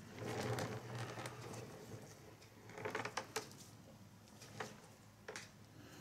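A paintbrush working thickened silicone rubber over a mold: a soft scrubbing rustle in the first second and a half, then a few light taps and clicks.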